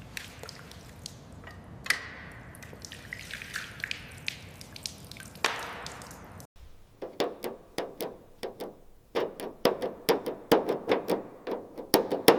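Hand-tool work on metal: a sharp clink with a brief ring about two seconds in, a hissing scrape, then a rapid run of clicks and taps through the last five seconds.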